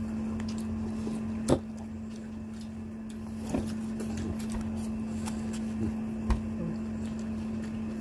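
Knocks and clicks of tableware and chopsticks at a meal table, over a steady low hum. There are a few sharp knocks; the loudest is about one and a half seconds in.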